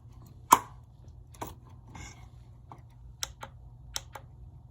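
Button on an RC car's radio transmitter pressed repeatedly, a series of sharp plastic clicks at irregular spacing, the loudest about half a second in; each press cycles the truck's light mode.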